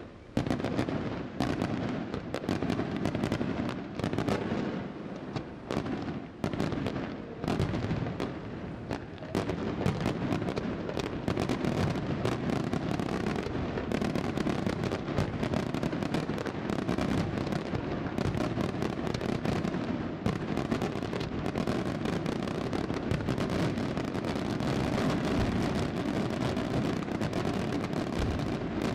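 Daytime fireworks display: salutes and firecracker volleys going off in rapid bangs and crackling. They come as separate reports with short gaps at first, then from about nine seconds in as a dense, nearly unbroken barrage.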